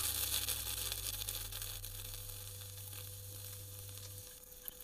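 Sel roti, a ring of rice-flour batter, sizzling as it deep-fries in hot oil in an iron pan. The sizzle is loudest at first and slowly dies down. A low steady hum runs underneath and stops shortly before the end.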